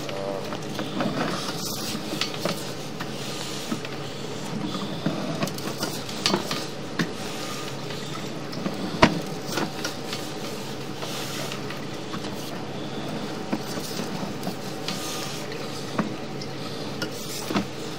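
Sewer inspection camera being pushed through standing, mucky water in a septic line: sloshing, squishy water noise with scattered clicks and knocks over a steady low hum, one sharper knock about halfway through.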